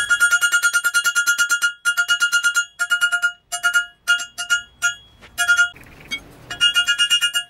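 Hand hammer striking hot 16 mm rebar on a steel block anvil, forging one half of a pair of tongs. Quick runs of blows, each with a high metallic ring, broken by short pauses, with the longest pause a little under a second at about six seconds in.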